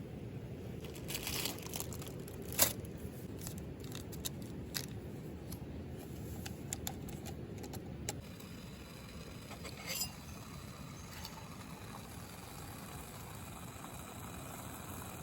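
Small handling noises: scattered clicks, light clinks and crinkling rustles, with one sharper click about two and a half seconds in, over a steady low rumble.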